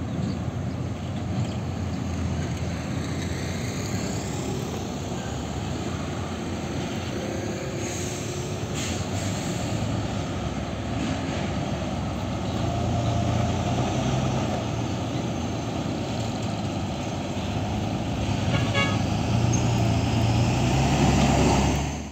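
Road traffic waiting at a railway crossing: truck and motorcycle engines idling, growing louder in the second half, while a slow train of flat wagons rolls past. A short horn toot sounds among the traffic.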